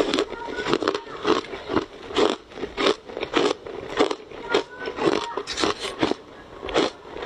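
Ice dusted with matcha powder being bitten and chewed close to the microphone, a steady run of loud, crisp crunches about two a second.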